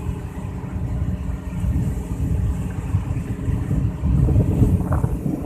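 Fishing boat's inboard engine running steadily while the boat is underway, a low continuous rumble.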